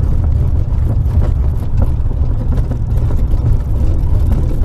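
Steady, loud low rumble of a small single-engine aircraft, engine and airflow noise heard on board.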